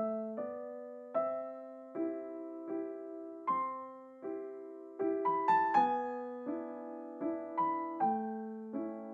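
Background music: a slow, gentle piano piece, notes and chords struck about once a second and left to fade, with a quicker run of higher notes in the middle.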